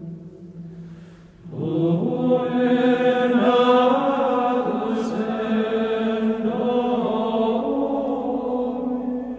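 Chant-like background music of long held, voice-like tones. A held tone fades away at the start, then a fuller chord comes in about a second and a half in and holds, shifting pitch slowly.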